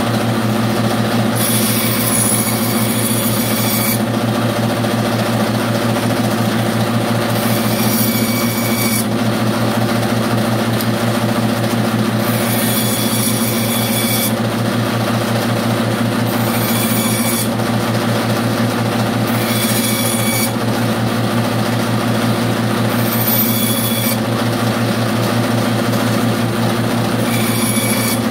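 Bandsaw running with a steady motor hum, its blade cutting small pieces of scrap wood in about seven short passes a few seconds apart, each cut adding a high hiss.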